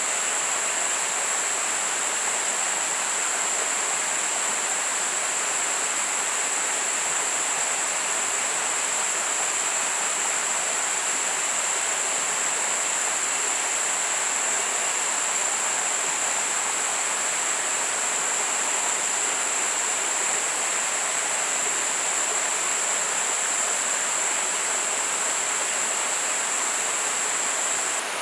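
Steady rushing of a forest river, with a constant high-pitched insect drone held on one pitch above it.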